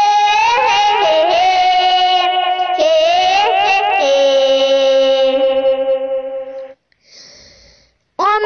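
Background music from a Hindi song: a melody of long held notes that slide and bend between pitches. It stops about three-quarters of the way through and, after a short near-quiet gap, starts again just before the end.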